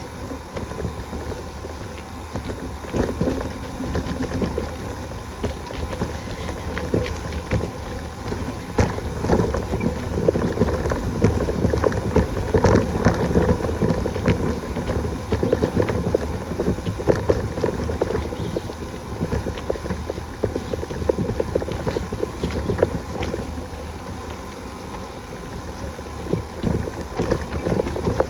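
Wind buffeting the microphone while riding a bicycle, with the bike rattling and clattering over a rough dirt trail; louder in the middle stretch.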